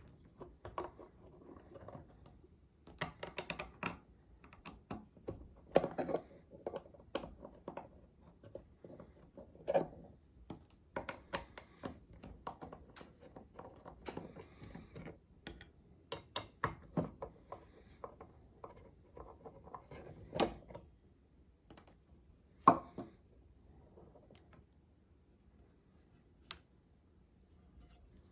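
Hands taking the bottom plate off a small metal-cased DC-DC battery charger: irregular small clicks, taps and scrapes of tools and metal parts, with one sharp knock about three quarters of the way through.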